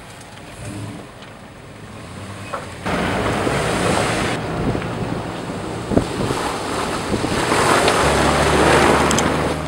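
Jeep Grand Cherokee WJ's 4.7 V8 engine driving through mud, then from about three seconds in loud wind noise buffeting the microphone over it. Near the end a steady low engine hum rises as the Jeep comes right past.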